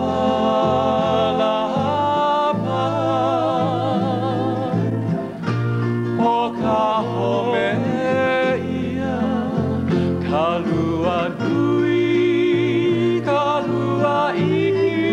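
Hawaiian song accompanying a hula: a singer's voice with vibrato over steady instrumental accompaniment.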